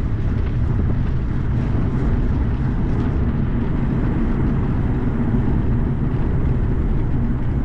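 Strong headwind buffeting the action camera's microphone while riding a bicycle downhill: a steady, loud low rumble.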